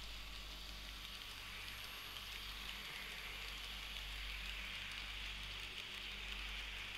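Märklin HO-scale model freight train running on the layout track: a steady rolling hiss of wheels on rails, with a low steady hum underneath.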